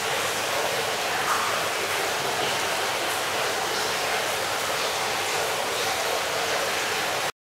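Steady rush of running water, such as hot-spring water pouring into a bath or a river flowing. It cuts off abruptly near the end.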